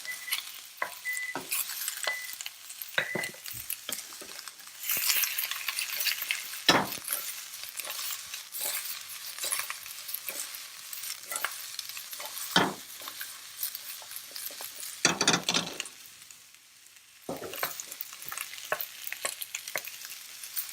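Sliced peppers and onions sizzling as they stir-fry in hot oil in a wok, with a spoon scraping and knocking against the pan as they are turned. The sizzle drops away briefly about three-quarters of the way through.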